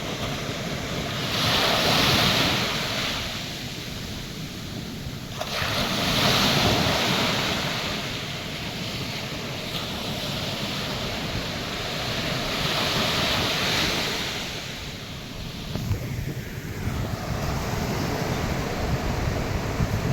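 Atlantic Ocean surf breaking on a sandy beach: three waves crash and wash in, about two, six and thirteen seconds in, each swelling and falling away. Near the end, wind buffets the microphone with a ragged low rumble.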